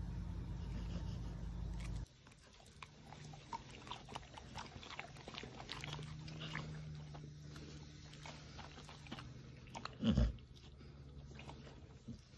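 Dog chewing and biting, a run of small wet clicks and crunches, as it takes a treat. A steady low hum stops abruptly about two seconds in, and a loud, short, low thump comes about ten seconds in.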